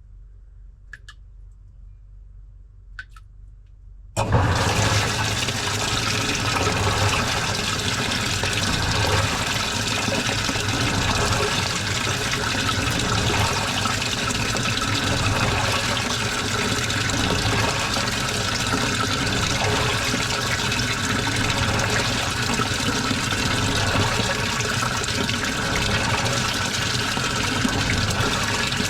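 A few faint drips inside a washing machine, then about four seconds in the water inlet opens suddenly and water rushes steadily into the drum as the machine fills.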